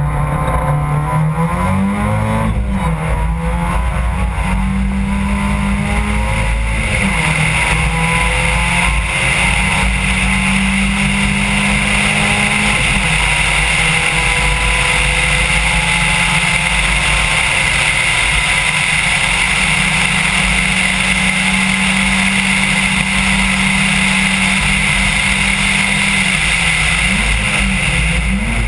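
Rally car engine driven hard on a tarmac stage, heard from a camera mounted on the car. The revs climb and drop repeatedly with gear changes and lifts for the bends, over a constant rumble and hiss.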